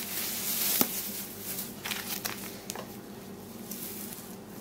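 Crinkling and rustling of packaging as a breadcrumb packet is handled, with a sharp click about a second in.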